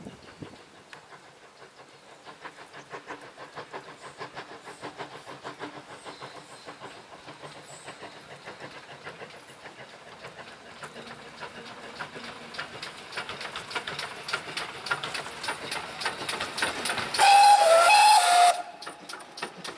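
GWR pannier tank steam locomotive hauling a passenger train, its exhaust beats growing louder as it approaches. Near the end it gives one loud blast on its steam whistle, lasting about a second and a half.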